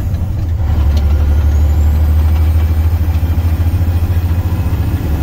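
Semi-truck's diesel engine heard from inside the cab, pulling under load as the truck is shifted up through its 13-speed gearbox without the clutch. It eases off briefly at the start, then a short click about a second in and it pulls steadily again.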